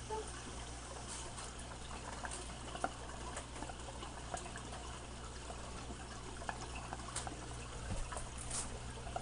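Steady trickle of water from an aquarium filter over a low, steady hum, with a few faint clicks as packaging is handled.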